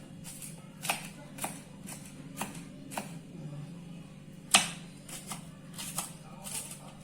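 Kitchen knife chopping crushed garlic cloves on a cutting board: about eight irregular knocks of the blade, the loudest about four and a half seconds in.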